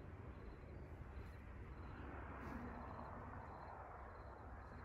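Wind rustling the leaves of a snowball bush, swelling in a gust about two seconds in, over a low wind rumble. Faint high chirps repeat through it.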